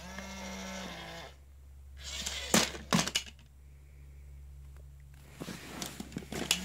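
Tekno robotic Dalmatian toy's small electric motors whirring as it moves from sitting to standing, a steady whine at first, then a lower hum, with sharp plastic clicks in between and near the end.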